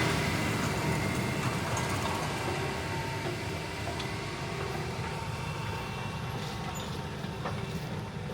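John Deere 9360R tractor's diesel engine running under load while pulling a moldboard plow, gradually fading.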